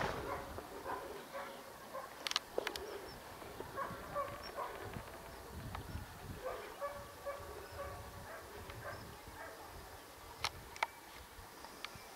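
A dog barking and whining again and again in short calls. Two pairs of sharp clicks cut in, one early and one near the end.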